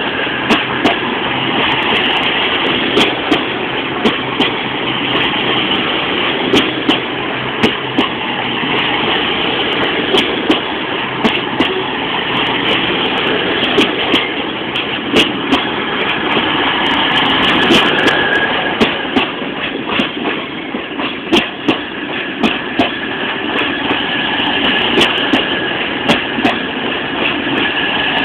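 East Midlands Trains diesel passenger train pulling slowly out along the platform, with a steady running rumble. The wheels give sharp clicks, about two a second, as they pass over rail joints.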